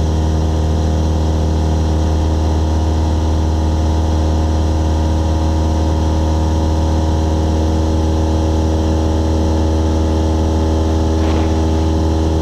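Cessna 172SP's four-cylinder Lycoming engine and propeller running steadily in flight, a constant low drone that holds the same pitch throughout.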